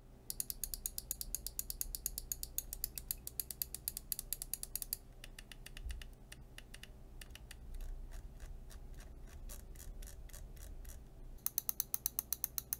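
Scroll wheel of a Pwnage StormBreaker magnesium gaming mouse being rolled through its notched steps, giving a rapid train of light, crisp ticks. The ticks slow and fade for a few seconds in the middle, then come fast and louder again near the end.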